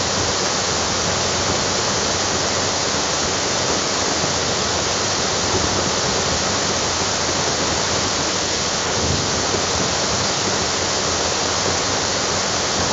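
AI-generated 'volcano eruption' sound effect playing back: a steady, unbroken rushing noise, with no distinct blasts or changes. It falls flat as an eruption and is not very spectacular.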